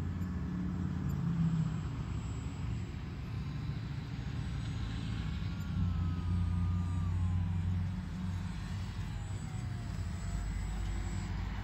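A low, uneven rumble, with the faint whine of an RC airplane's electric motor falling steadily in pitch from about four seconds in as the plane comes in low to land.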